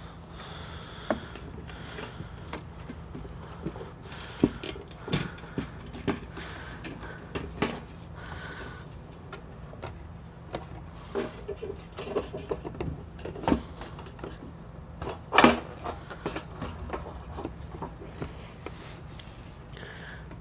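Scattered light plastic clicks, knocks and rubbing as a fuel pump module is worked down into a UTV's plastic fuel tank opening by hand, with one louder knock about fifteen seconds in, over a steady low hum.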